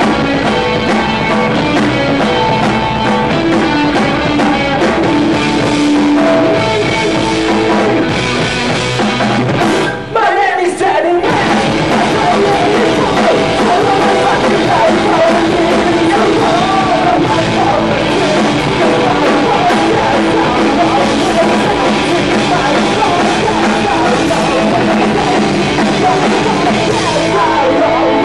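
Live punk rock band playing loud: electric guitar, bass and drum kit, with a man singing into the microphone. The music breaks off briefly about ten seconds in, then carries on.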